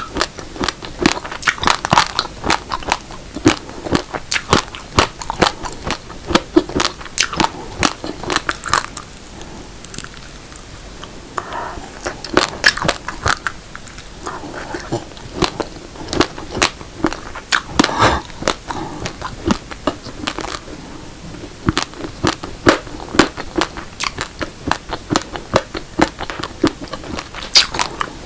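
Close-miked crunching of raw uncooked black and red rice grains being chewed: a rapid run of sharp, hard cracks, several a second, with a brief lull about ten seconds in before the crunching picks up again.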